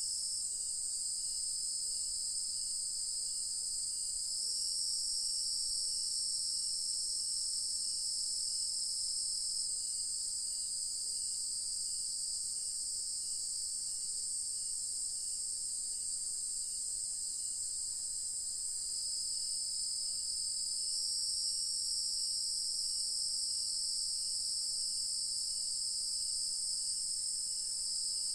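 A dusk chorus of insects, crickets and cicadas, keeps up a steady high-pitched shrill drone, swelling slightly a few times. A fainter, lower chirp repeats evenly beneath it, well over once a second.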